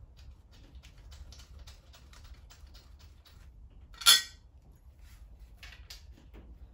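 Light irregular metallic clicks and taps as new spark plugs are handled and started into the cylinder head by hand, with one sharp, much louder metal clink about four seconds in.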